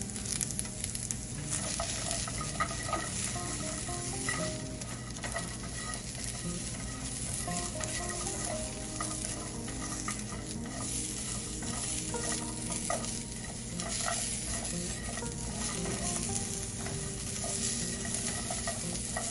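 Garlic cloves, shallots and red chilies sizzling as they dry-roast in a nonstick frying pan, stirred and scraped around with a silicone spatula, with many small clicks and scrapes over a steady hiss.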